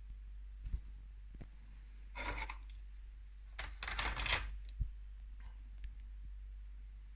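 Hard plastic toy parts being handled and fitted together: a few sharp clicks, two short scraping rattles in the middle, then another click, as a black plastic hardtop roof goes onto a toy police off-roader.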